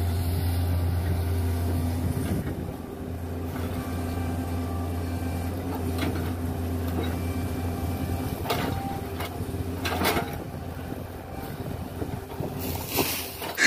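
Excavator's diesel engine running steadily, with a strong low hum that eases a little after about two seconds. A few short knocks sound about eight and a half and ten seconds in, and again near the end.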